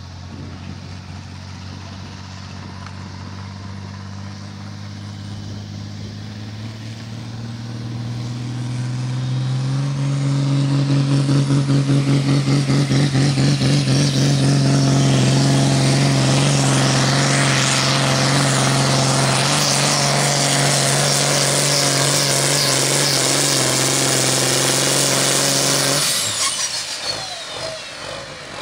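John Deere 6030 pro farm pulling tractor's diesel engine revving up under load, then running flat out as it drags the sled down the track, with a throbbing pulse early in the hard pull. About two-thirds of the way through, the engine noise suddenly drops away.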